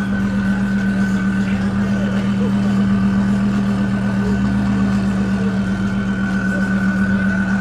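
A car engine held at steady revs, its pitch unchanging.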